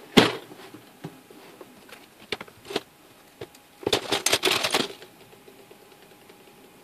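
Hands rummaging through a cardboard box of scrap clock parts: a sharp knock just after the start, a few light clicks, then about a second of metal pieces and springs clattering and jingling against each other about four seconds in.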